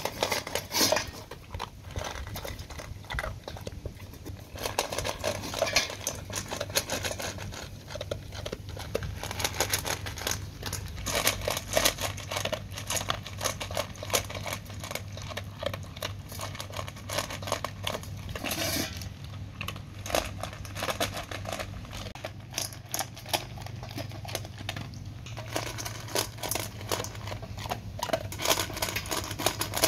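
A dog eating dry kibble from a stainless steel bowl: a steady stream of crunching and chewing, with pieces clicking and rattling against the metal.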